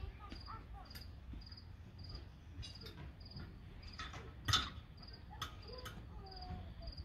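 Insect chirping in short, high-pitched pulses, about two a second, steady throughout. A single knock about four and a half seconds in, with faint children's voices now and then.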